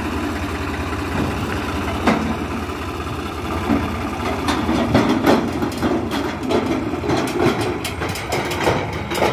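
Diesel tractor engine running steadily while its tipping trailer dumps earth. There is a sharp knock about two seconds in, and a run of rattling knocks through the second half as the tipper body comes down and the tractor moves off.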